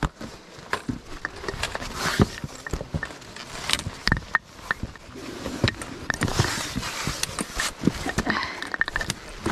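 A hiker's footsteps and shoe scrapes on rock during a climb: irregular clicks, knocks and scuffs, with stretches of rustling in between.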